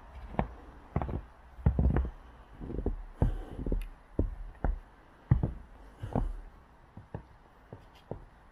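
Footsteps on fresh snow at a walking pace, about two steps a second, growing softer near the end.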